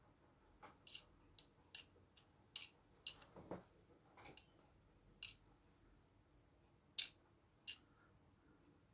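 A comb being drawn through a short wig: about a dozen brief, sharp scratches and clicks at irregular intervals, faint overall, the loudest about seven seconds in.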